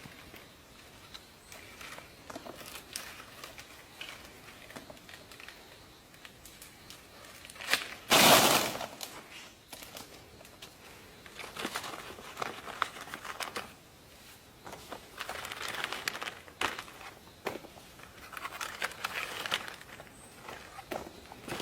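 Dry plant material rustling and crackling in irregular bursts, with one louder burst about eight seconds in.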